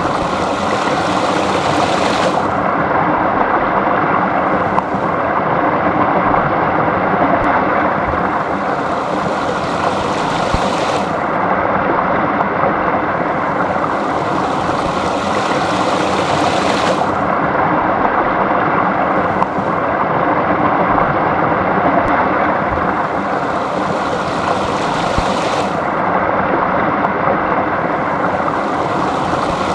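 Small brook running: a steady rush of flowing water.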